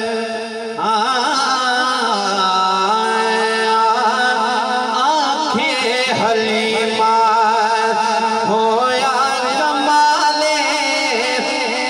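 Naat recital singing: long wordless phrases with a wavering, ornamented melody over a steady held drone.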